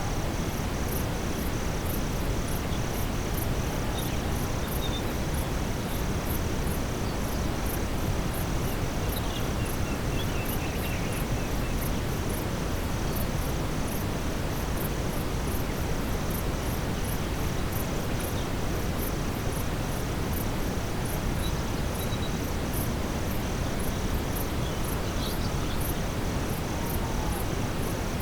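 Steady brown noise, a deep, even rushing, mixed with a nightfall forest ambience: night insects chirping in a fast, regular rhythm high up over a steady insect trill, with a few faint, brief calls here and there.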